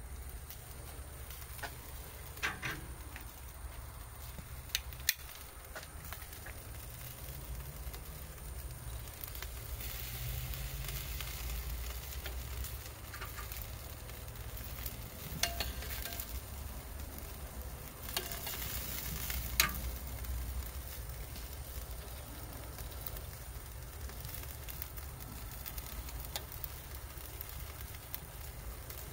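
Chicken wings sizzling steadily on a hot charcoal grill grate, with a few sharp clicks of metal tongs handling the wings.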